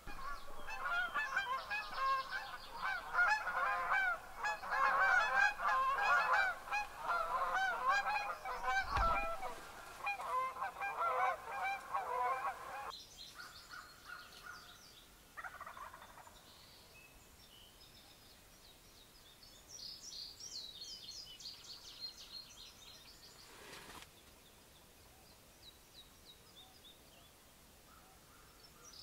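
A flock of large birds calling, many loud overlapping calls that stop abruptly about 13 seconds in. After that, fainter high chirps of small birds, and a single low thump about 9 seconds in.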